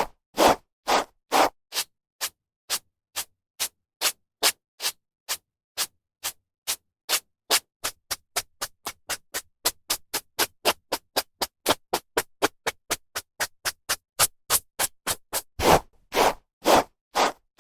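A hairbrush drawn through hair in quick, short strokes, about two to three a second, with a few longer, louder strokes near the start and near the end.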